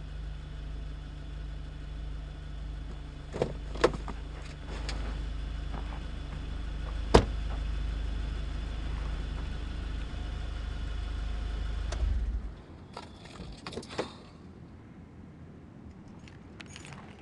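A car engine idling with a steady low hum. There are two clicks about three and a half seconds in, and a car door slams shut about seven seconds in. The hum stops abruptly about twelve seconds in, followed by a cluster of clicks from a door being opened.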